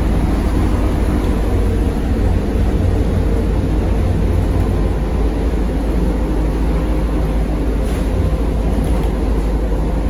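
Cabin noise of a ZiU-682V-012 trolleybus under way: a steady, heavy drone of the traction drive and road noise, with a faint constant hum running through it.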